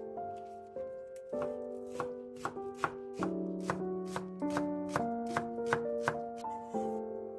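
Chef's knife chopping green onions on a wooden cutting board: a quick run of sharp knife strikes against the board, about three to four a second, starting about a second in. Background music plays under it.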